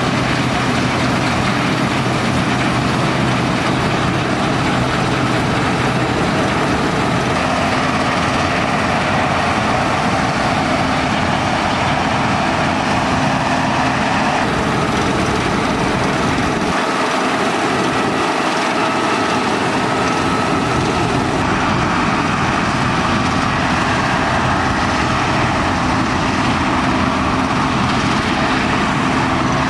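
Fortschritt E517 combine harvester running as it harvests, its Schönebeck V8 diesel and threshing machinery making a steady, loud drone. The sound shifts abruptly a few times, with the deep rumble dropping away briefly about two-thirds of the way through.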